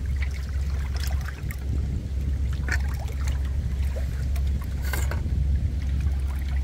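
Water splashing and sloshing around a landing net holding a zander in the shallows at a rocky bank, with a few sharp splashes about a second in, near the middle and near the end. Under it runs a steady low rumble.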